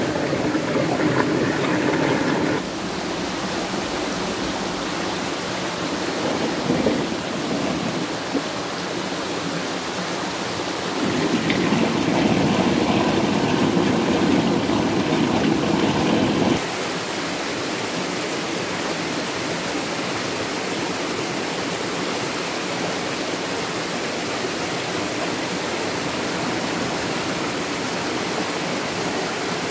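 Stream water rushing steadily. For the first two to three seconds a steady mechanical hum with several pitched tones sits over the water, then stops abruptly. From about 11 to 16 seconds the rushing is louder and fuller.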